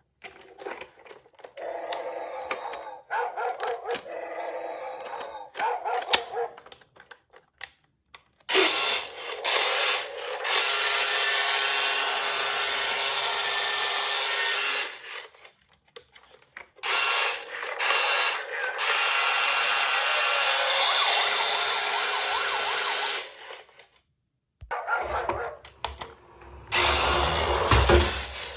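Toy ambulance mini car rolling down a slope with a loud whirring noise, in three long runs of several seconds each, with clicks and knocks between them.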